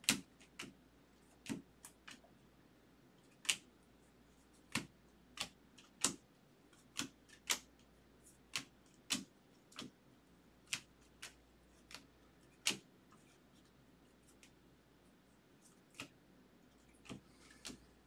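Trading cards being flipped one at a time through a hand-held stack, each card giving a sharp click as it snaps against the pack, irregularly about once a second, with a lull of a few seconds near the end.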